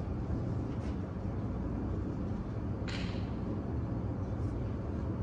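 Steady low outdoor rumble, with one short hiss about three seconds in.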